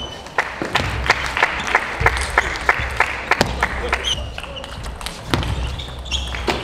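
Table tennis rally: the plastic ball clicks back and forth between bats and table about three times a second for roughly three seconds, then stops as the point ends. More ball clicks come near the end as the next point begins.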